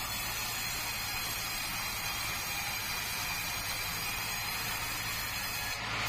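Band sawmill running steadily, its blade cutting through a squared timber beam fed along a roller table, with a constant low machine hum under the hiss of the cut.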